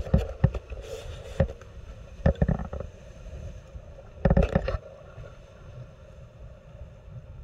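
Outdoor shoreline noise: a low wind rumble on the microphone with irregular knocks and rustles, the loudest burst about four seconds in, settling to a steadier rumble near the end.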